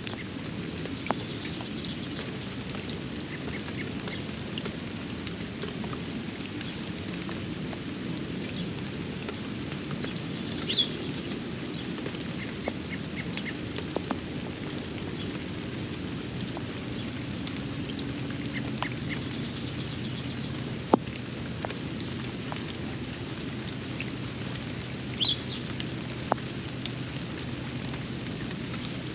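Steady rain falling, with scattered sharp ticks of single drops striking close by, the loudest about two-thirds of the way through. A bird gives a short high call twice, about a third of the way in and near the end.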